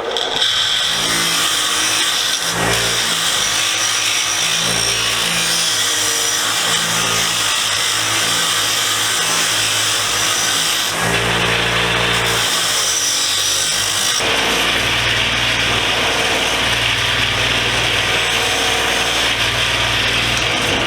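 Bench grinder running with a wire wheel while a ratchet is held against it to strip rust and grime: a steady motor hum under a harsh scratching hiss, pretty noisy, its tone shifting a few times as the piece is moved on the wheel.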